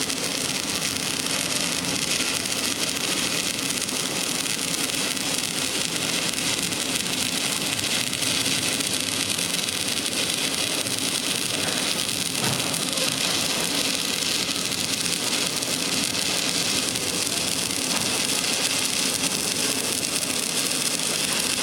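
Stick arc welding: the electrode's arc gives a continuous, steady hiss.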